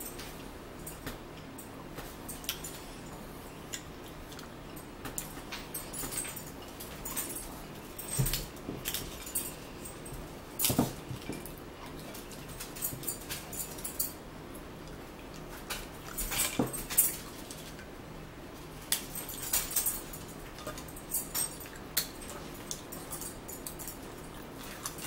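Chewing and lip-smacking as two people eat breakfast sandwiches, heard as scattered small clicks and crackles, with a few louder ones about eight, eleven and seventeen seconds in.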